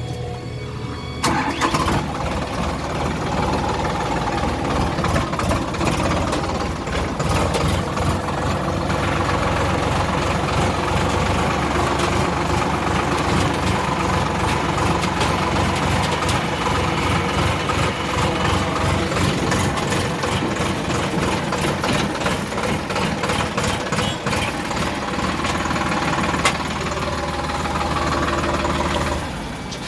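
Heavy diesel engine of earth-moving machinery running under load. It comes in loudly about a second in, holds steady, and eases off near the end.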